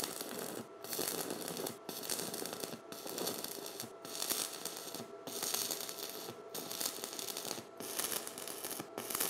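Stick-welding arc from a WR0-250 non-gas/arc welder, crackling and sizzling steadily as a coated electrode lays a fillet weld along an L-shaped joint. The crackle breaks off for an instant about once a second.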